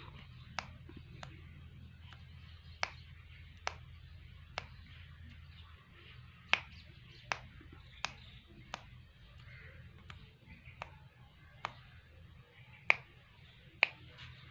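About a dozen sharp clicks at irregular intervals, roughly one a second, the loudest near the end, over a faint low hum.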